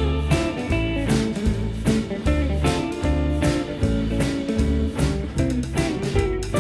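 Background music: a guitar tune over bass notes with a steady beat.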